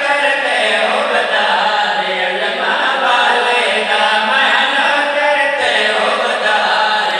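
A man chanting a slow, mournful devotional recitation (masaib) into a microphone, in long held notes that slide slowly up and down in pitch.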